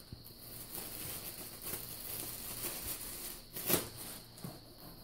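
Rustling and handling noise as fursuit parts and their packaging are unpacked, with a sharp knock a little before four seconds in and a lighter one just after.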